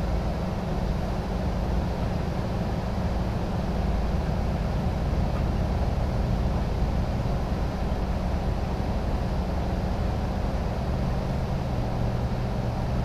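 An engine running steadily with a low drone; about eleven seconds in the low hum shifts in pitch.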